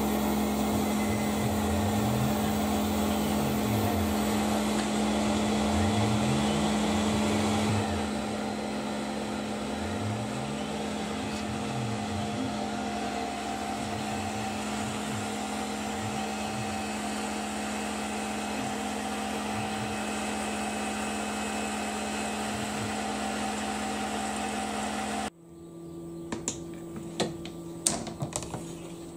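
Tormach PCNC 1100 CNC mill profile-cutting a 6061 aluminium part under flood coolant. The spindle runs at a steady pitch while low tones rise and fall as the cut moves around the profile. Near the end the machine stops abruptly, followed by a few clicks and knocks.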